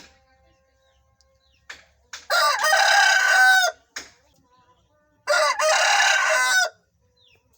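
Aseel roosters crowing: two long crows, the first about two seconds in and the second about five seconds in, each ending in a falling note.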